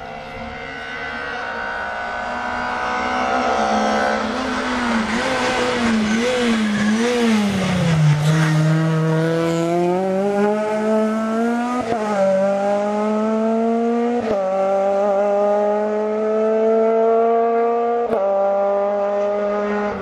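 Rally car engine approaching at high revs, then wavering and dropping in pitch as it brakes and changes down for a hairpin. It then accelerates away hard, the revs climbing and falling back through three upshifts.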